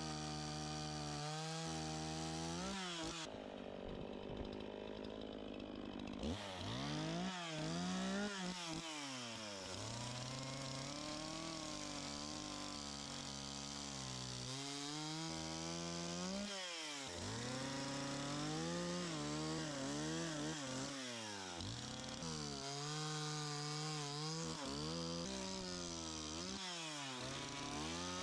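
Echo CS-501P two-stroke chainsaw carving wood, its engine pitch rising and falling over and over as the throttle is blipped on and off between cuts. For a few seconds near the start it drops to a lower, duller note.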